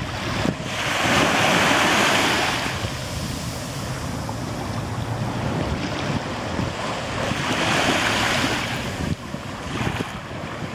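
Small waves washing up on a sandy beach, with two louder washes swelling and fading, one about a second in and one about seven seconds in. Wind rumbles on the microphone underneath.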